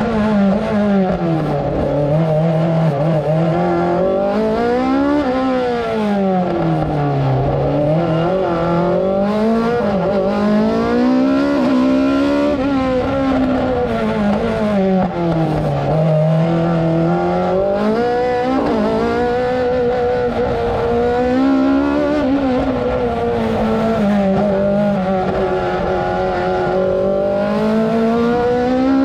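Osella PA2000 2-litre sports-prototype racing engine at full race pace, heard from the cockpit. The engine pitch climbs and drops again and again as it accelerates, changes gear and slows for the bends.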